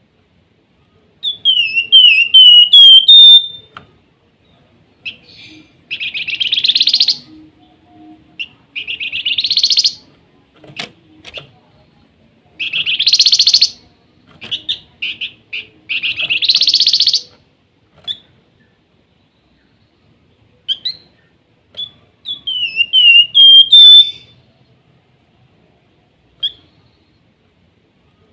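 Flamboyan bird (Javan fulvetta) singing: a run of about five quick whistled notes climbing into a held high note, twice, with four harsh rasping chatters of about a second each in between.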